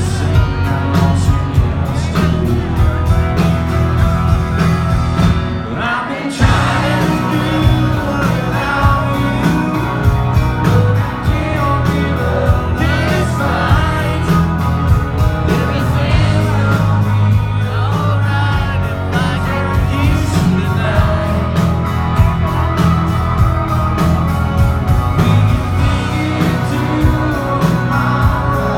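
Live country-rock band: a male singer sings over electric guitar and a full band with a steady beat, heard from within the audience. The band drops out for an instant about six seconds in, then comes back in.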